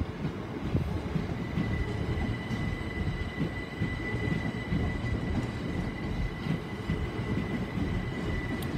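Class 375 Electrostar electric multiple unit moving off, a steady high whine from its traction equipment over the rumble of wheels on the rails.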